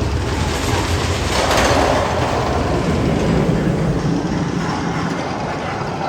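Magnum XL-200 roller coaster train rumbling along its track, a steady loud roar that swells briefly about one and a half seconds in.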